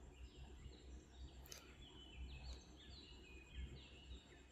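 Near silence: a faint low hum with faint high chirping of birds in the background, and a single sharp click about one and a half seconds in.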